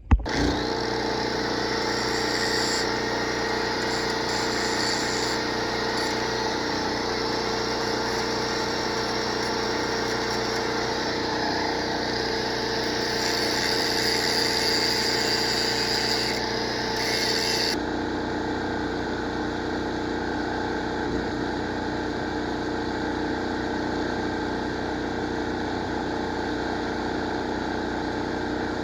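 Arc welding along a crack in a cast mower part: a steady crackling hiss from the arc over a steady engine hum. The arc stops about 18 seconds in, and the engine keeps running.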